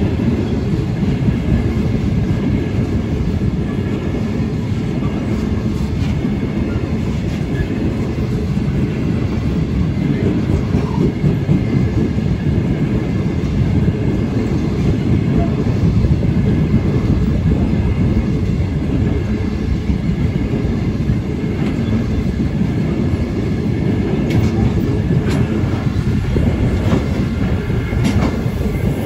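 Loaded grain hopper wagons rolling past on the rails: a steady low rumble of wheels with faint clicks over the rail joints.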